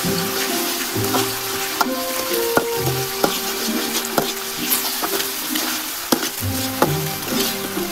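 A metal spoon stirs and scrapes a chili-garlic oil sauce in a wok, with a steady sizzle from the hot oil and scattered clicks of the spoon against the pan. Background music plays throughout.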